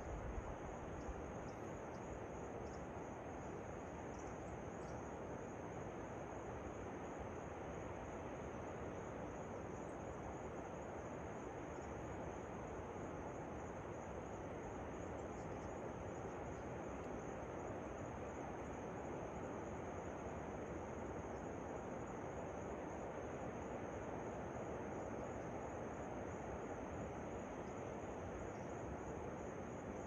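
Steady rush of falling water from a waterfall, with a continuous high insect drone above it.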